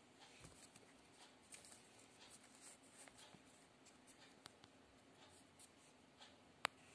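Faint scratching and rustling of newspaper being rolled by hand into a thin tube, with light scattered ticks of paper on paper. A single sharp click near the end.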